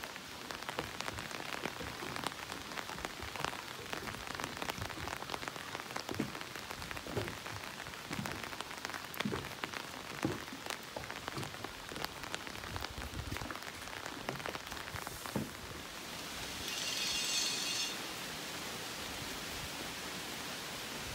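Steady rain with many close raindrop taps. About three-quarters of the way through comes a brief, louder high-pitched hiss lasting a second or two; after it, an even, smoother rain hiss with fewer taps.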